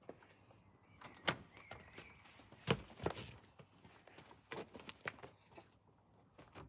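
A garden basket swing swinging and twisting on its chains, giving a scatter of sharp knocks and clicks, several of them close together in pairs, with a faint thin squeak about two seconds in.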